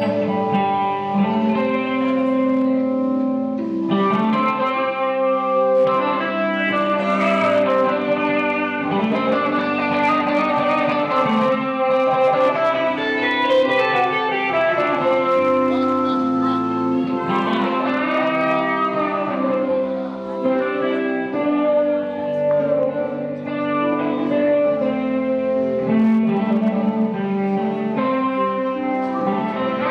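Guitar-led music playing continuously, with held notes that bend in pitch.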